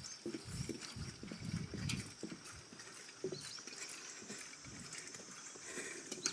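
Footsteps of a person walking across a pedestrian suspension bridge deck: a string of soft, uneven footfalls.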